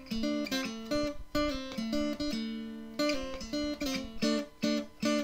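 Intro music: an acoustic guitar playing a run of plucked notes and strums, each ringing and fading.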